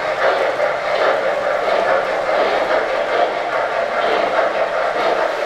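O-gauge model train running on three-rail track, a steady rolling rumble as its passenger cars pass by and draw away.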